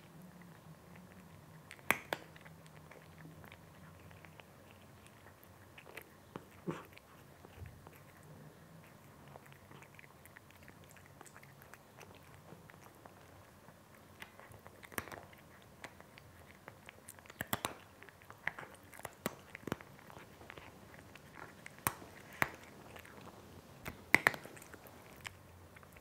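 A cat crunching dry kibble from a bowl: irregular sharp crunches, sparse at first and coming much thicker in the second half.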